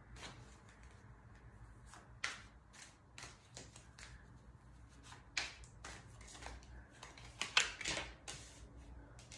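A deck of tarot cards being shuffled by hand: a string of light, irregular card clicks, loudest near the end.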